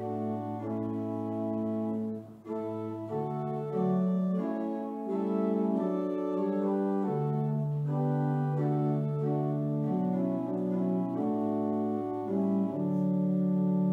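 Church organ playing a slow piece in long, held chords that change every second or two, with a brief dip in level a couple of seconds in.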